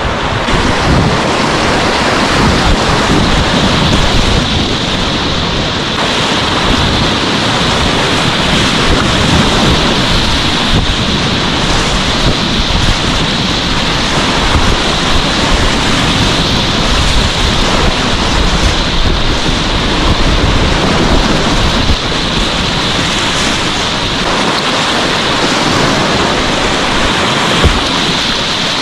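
Whitewater rapids on the French Broad River rushing steadily and loudly, with buffeting on the microphone.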